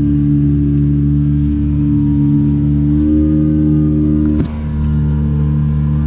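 Small fishing boat's engine running steadily at a constant speed, with a brief click and a short dip in level about two-thirds of the way through.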